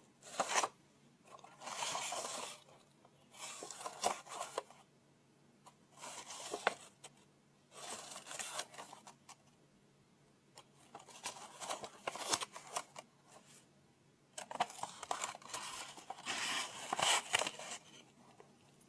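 Paper rustling close to the microphone, in about a dozen short bursts with small clicks between them.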